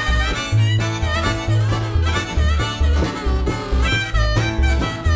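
A band plays an instrumental break: a harmonica leads with bent notes over strummed acoustic guitar and a bass line that steps about twice a second.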